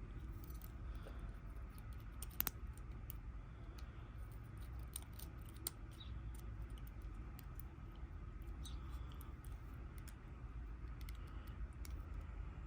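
Scattered small metallic clicks and taps from a Kwikset lock cylinder being worked with a shim during rekeying, with a sharper click about two and a half seconds in and another near the middle.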